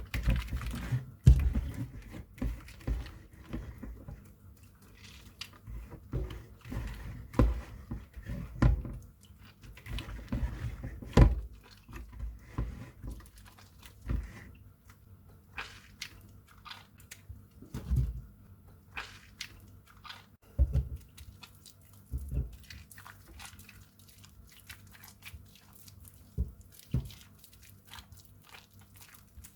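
Soap crunching and cracking as it is cut or crushed by hand, in irregular crunches that come thick and fast at first and grow sparser later on.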